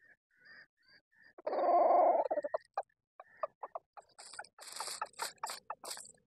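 Red junglefowl gives a loud, harsh squawk lasting about a second, after a few faint chirps. It is followed by a quick run of scuffling and crackling in dry leaf litter that grows busier toward the end.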